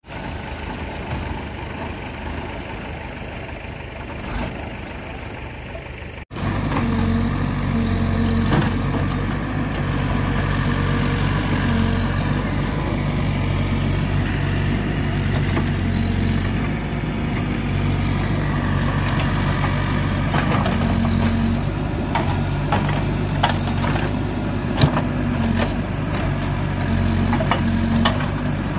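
Heavy diesel engine running steadily, easing and working harder by turns, with a few short metallic clanks. About six seconds in it becomes much louder and closer.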